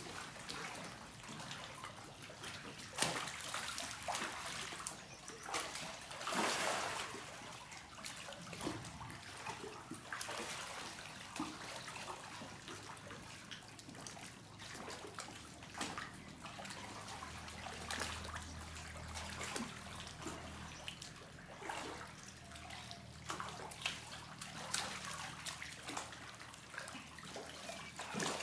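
Shallow pool water trickling and splashing as a crowd of young crocodiles shifts about in it, with a sharper splash about three seconds in and another between six and seven seconds in.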